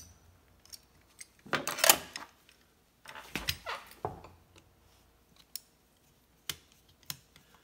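Metal clinks and scrapes of a screwdriver working on the small steel parts of a 1975 Ski-Doo Olympic brake assembly. The sounds come in two short bursts, then single taps near the end.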